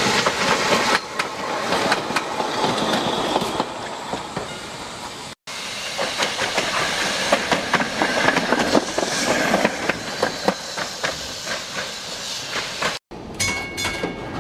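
Electric streetcars running on track, including a PCC car passing close: a steady rumbling hiss dotted with many sharp clicks of steel wheels over the rails. The sound drops out briefly twice.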